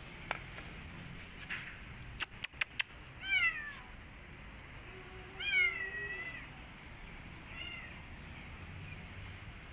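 Kitten meowing three times, the middle call the longest, each one sliding down in pitch at its end. Just before the first meow come four sharp clicks in quick succession.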